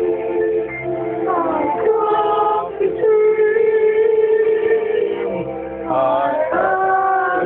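A high singing voice holding several long notes and sliding between them, over music: a deliberately bad imitation of a boy-soprano song.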